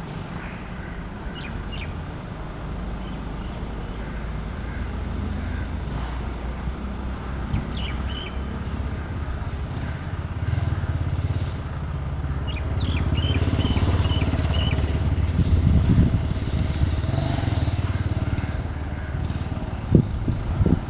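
Approaching express train, its locomotive and wheels on the rails making a low rumble that grows steadily louder, with a rushing hiss joining in over the second half as it nears. A bird chirps briefly a few times, and there are a couple of sharp thumps near the end.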